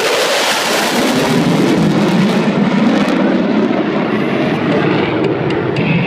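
USAF Thunderbirds F-16 fighter jets flying overhead: loud, continuous jet noise whose hissing upper part dies away about three seconds in, leaving a lower rumble as the jets move off.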